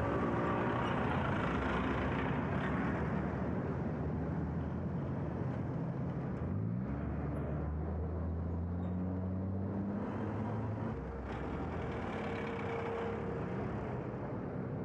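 City street traffic with cars and a bus passing close. About six and a half seconds in, one engine rises in pitch and then runs steadily for a few seconds.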